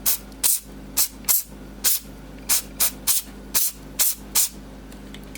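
Aerosol can sprayed in about eleven short hissing bursts, over a steady low electrical hum.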